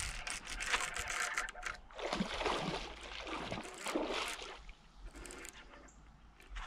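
Water splashing and sloshing close by: a sudden burst of splashing, then a few surging splashes that fade toward the end.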